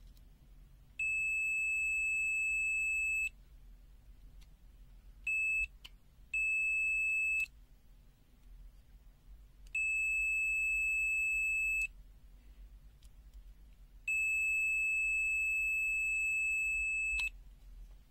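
ANENG SZ06 multimeter's continuity buzzer beeping five times as the test probes touch connected points: a steady high-pitched tone, some beeps short and others lasting two to three seconds.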